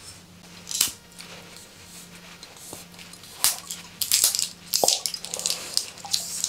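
Screw cap of an Ilpoom Jinro soju bottle being twisted open by hand against a tight seal: scattered clicks and crackles, growing into a denser cluster from about four seconds in.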